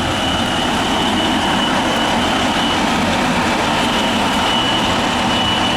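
Building fire alarm sounding a high, steady tone, with a short break about three seconds in, heard over a loud, steady rumble of vehicle noise.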